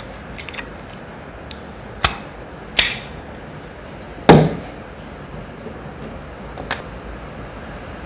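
Hard plastic parts of a handheld mini spray-water fan clicking and knocking as they are fitted together by hand, with the spray bottle pressed into its holder. A few sharp clicks, the loudest about four seconds in.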